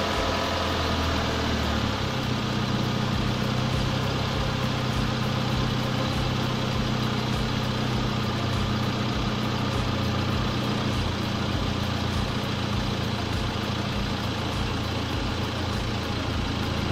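Proton Waja's Mitsubishi 1.6-litre four-cylinder engine idling fully warm while its idle speed is turned down by adjustment. The pitch drops about a second or two in and then holds steady, as the idle settles from around 1300 rpm toward about 850 rpm.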